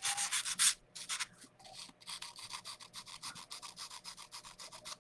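Sanding pad rubbed back and forth over the chalk-painted edge of a coaster to distress the paint: quick scratchy strokes, loudest in the first second, then lighter.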